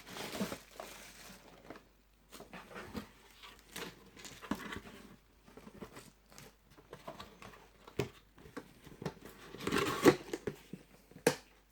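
Packaging being handled and opened: irregular crinkling and rustling with scattered small clicks and taps, and a denser burst of rustling and a sharp click near the end.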